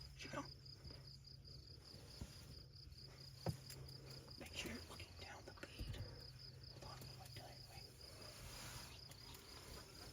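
Faint insect chirping: short high-pitched chirps repeating evenly at about four a second, with a low steady hum beneath and a soft knock about a third of the way in.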